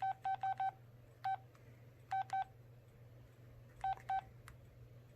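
Samsung SCH-A850 phone's keypad beeps as menu keys are pressed: nine short beeps at one pitch, four in quick succession, then one, then two pairs, over a faint low hum.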